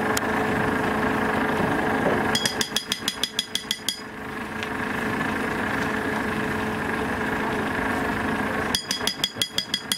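Two runs of rapid metallic tapping, about ten taps a second, each tap with a short ringing tone, over a steady mechanical hum. The first run lasts about a second and a half; the second starts near the end.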